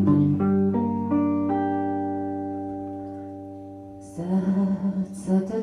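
Guitar intro: notes picked one after another and left to ring together, slowly fading, then busier, choppier playing starts about four seconds in.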